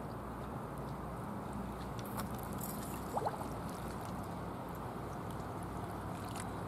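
Small waves lapping and trickling against a rocky shore, a steady low wash of water. A pair of faint, short squeaks comes about three seconds in.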